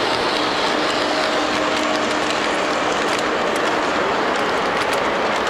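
O gauge three-rail model train rolling past: a diesel locomotive and autorack cars making a steady rattle of wheels on track, with sharp clicks over rail joints in the second half.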